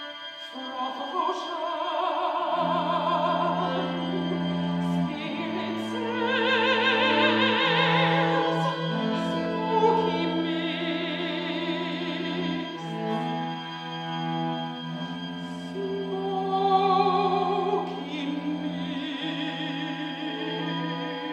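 A mezzo-soprano singing classical art song in a full operatic voice with wide vibrato, over a string quartet holding long sustained chords whose low notes change every few seconds.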